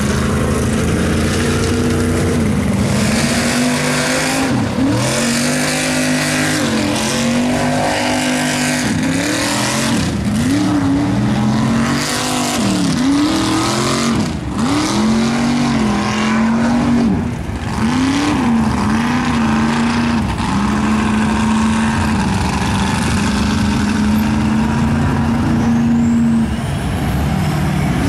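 Mud truck engine running at high revs, its pitch sagging and climbing back again and again as it works under load, then holding steadier at high revs near the end.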